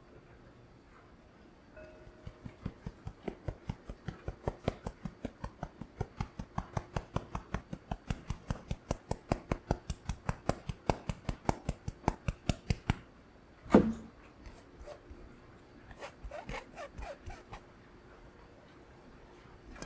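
Stainless-steel mesh sieve being tapped to sift cake flour and cornstarch, a steady run of about four to five light taps a second. It is followed by one loud knock and a few softer scraping sounds.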